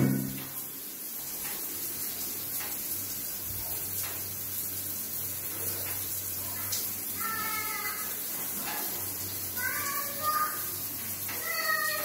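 Modena tankless gas water heater running, a steady rushing with a low hum. In the second half come a few short high-pitched cries, about three, each bending in pitch.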